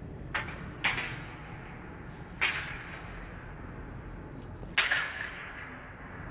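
Fencing sabre blades clashing: four sharp metallic contacts with a brief ringing tail, two close together about half a second in, another past two seconds and the loudest near five seconds.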